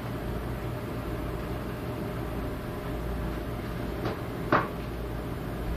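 Steady low hum of room noise, with a short knock about four seconds in and a louder, sharper knock half a second later.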